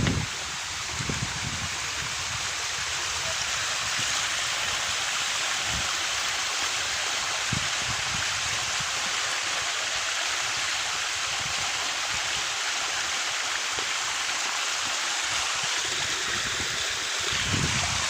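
Waterfall rushing steadily, an even hiss of falling water, with a few dull low thumps about a second in and near the end.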